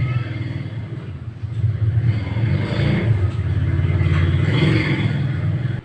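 Small portable generator engine running with a rapid low firing pulse. Its speed eases off about a second in and picks up again about two seconds in, then the sound cuts off abruptly near the end.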